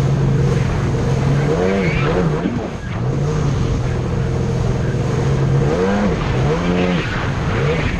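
Jet ski engine running at speed, its pitch holding steady and then rising and falling as the throttle is worked, about two seconds in and again near the end. Rushing water and wind noise run under it.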